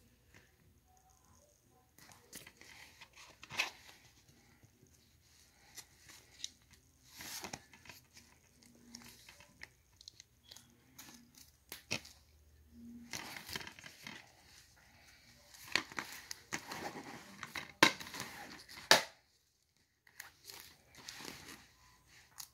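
Hands handling an open plastic DVD case and its paper insert: rustling and scattered clicks, with two louder sharp clacks near the end as the case is shut.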